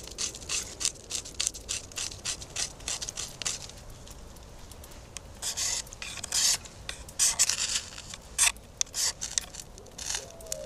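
Steel knife blade scraping wood and a ferro rod in quick, uneven strokes, shaving tinder to light a fire.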